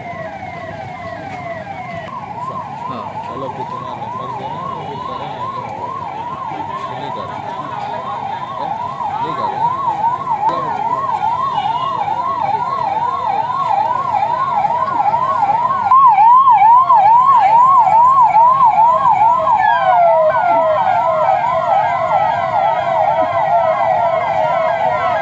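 Police siren in a fast yelp, sweeping up and down about two to three times a second. It grows steadily louder and is loudest from about two-thirds of the way in.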